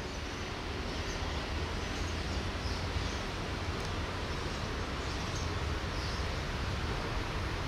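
Diesel locomotive approaching along the track, a steady low engine rumble under a wash of noise that grows slowly louder.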